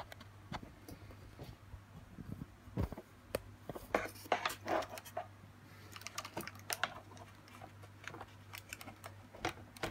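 Scattered light clicks and knocks of handling: a phone camera being moved and set down, and a hand on the hard plastic casing of an opened cool box, over a faint steady low hum.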